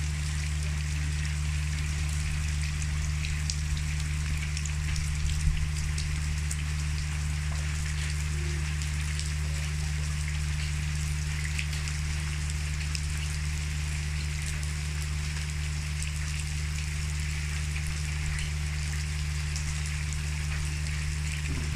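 Steady rain falling, a continuous hiss of drops pattering on wet ground and puddles, with a steady low hum underneath.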